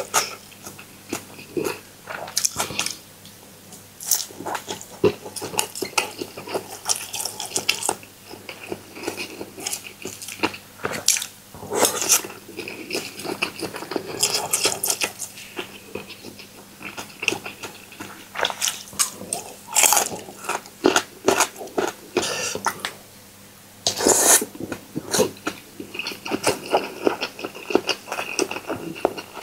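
Cutlery clinking and scraping on a dish, mixed with chewing, as someone eats a noodle salad. The clatters come irregularly and often.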